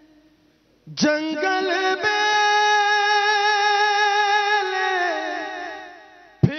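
A man singing a Punjabi naat into a microphone: after a second's pause he comes in and holds one long, steady note for about four seconds, which fades out near the end.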